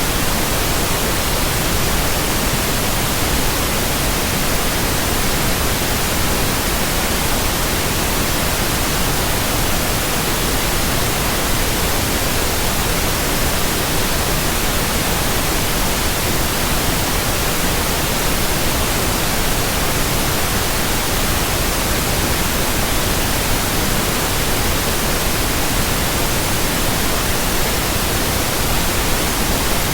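Pure white noise: an even, unchanging hiss spread evenly across all pitches, holding a steady level throughout.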